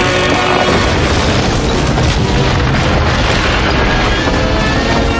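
Cartoon sound effect of stone masonry collapsing: a long, continuous crash of falling rubble, with music underneath.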